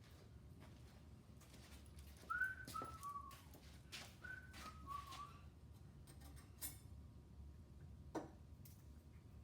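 A short three-note whistled phrase falling in pitch, whistled twice. Light clicks and knocks of tools or parts are heard around it, with one sharper click near the end.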